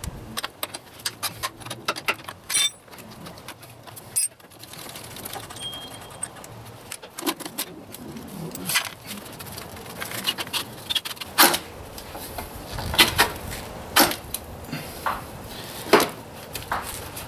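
Metal clinks and knocks as an aftermarket Lexx motorcycle muffler is handled and twisted loose from its exhaust link pipe, with several louder clanks in the second half.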